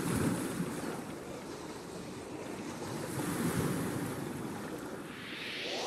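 Rushing wind and water noise of waves, swelling and easing, with a rising whoosh near the end.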